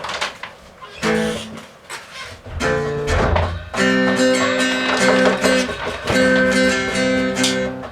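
Acoustic guitar being played: a few single notes and chords at first, then steady strummed chords from about four seconds in.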